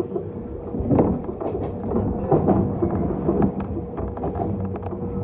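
Electric commuter train running along the track, heard from the front cab: a continuous low rumble with a steady hum, broken by irregular knocks and clacks as the wheels pass over rail joints.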